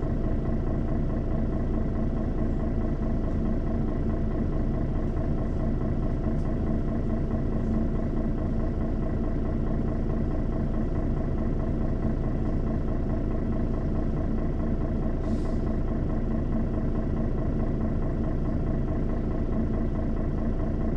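Mercedes-Benz O 530 Citaro city bus engine idling steadily at an even level, with no revving.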